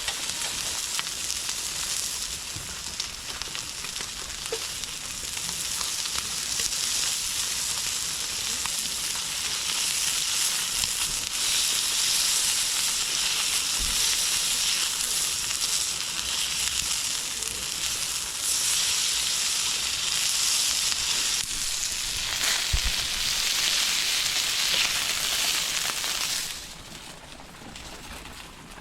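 Food sizzling and crackling as it fries in a pan, a steady hiss that dies down abruptly about 26 seconds in.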